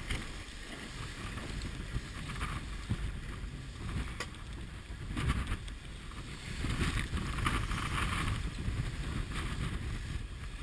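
Wind buffeting the microphone and water rushing past the hull of a J30 sailboat heeled over under sail, swelling and easing in gusts.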